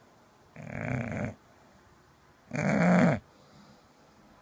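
English bulldog snoring in its sleep: two snores about two seconds apart, the second louder.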